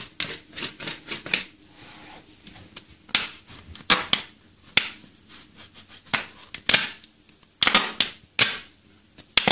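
Knife blade working a hole wider in a thin plastic soda bottle: irregular sharp clicks, crackles and scrapes of the plastic, with a few louder snaps spread through.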